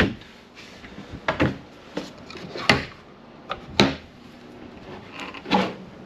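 Wooden kitchen cabinet doors swung shut and a drawer pulled open, a string of sharp knocks and clicks, about eight over five seconds.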